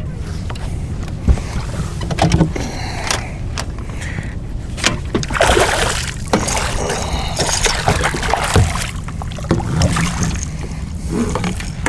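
Steady low rumble of wind and water around a small fishing boat, with irregular splashing and knocking as a hooked fish is fought and brought aboard, busiest in the middle.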